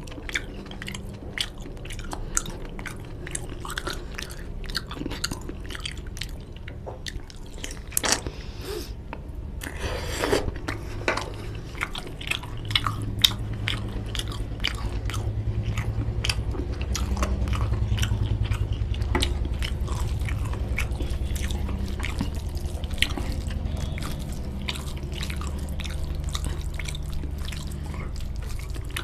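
Close-miked chewing of mutton curry and rice: a dense run of wet smacks and small mouth clicks, with some crunching.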